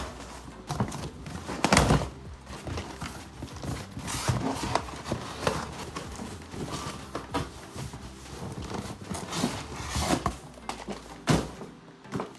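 A package being wrestled open by hand, an item tugged out of a tight cardboard box: irregular knocks, scrapes and crinkling of packaging, with a couple of sharper thumps.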